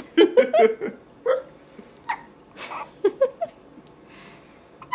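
Baby hiccuping, each hiccup coming with a small squeak. There is a quick run of short squeaks near the start, then a few more spaced out, with soft breathy sounds between.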